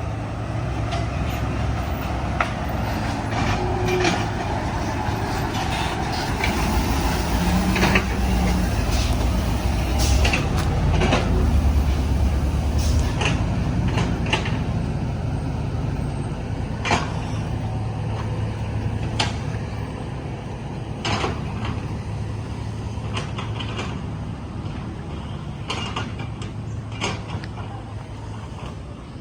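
Diesel engine of heavy earthmoving machinery running under load, working harder for a few seconds near the middle, with frequent sharp clanks and knocks throughout.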